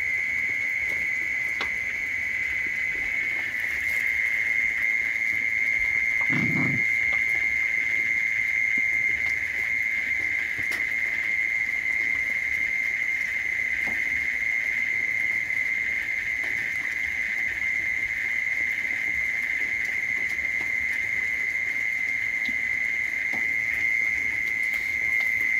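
A steady high-pitched drone throughout, with a single short low sound about six and a half seconds in.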